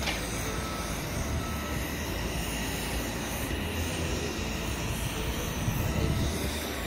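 Steady low roar of aircraft-carrier deck ambience: wind and machinery noise with no distinct events.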